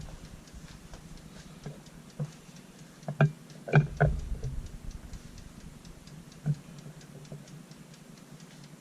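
Steady, even mechanical ticking like a clock or timer, with a few louder knocks and clatters about three to four seconds in and another at about six and a half seconds.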